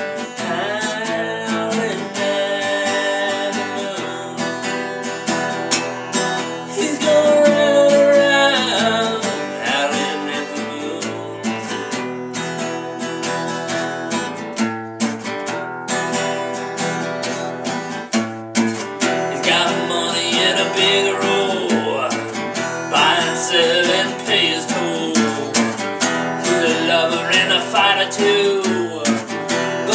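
Acoustic guitar strummed in a steady rhythm, with a man singing over it for much of the time.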